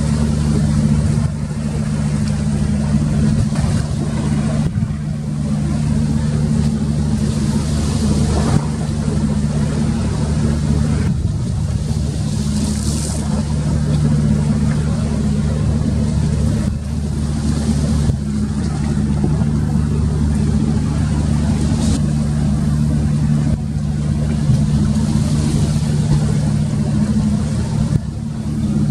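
An engine running steadily, a constant low hum with no clear change in speed.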